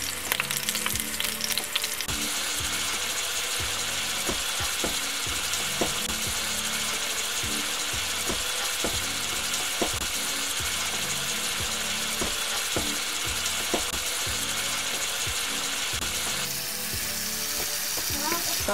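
Ground beef frying in a stainless steel pan: a steady sizzle that grows stronger about two seconds in. Scattered clicks and scrapes against the pan come as the meat is broken up.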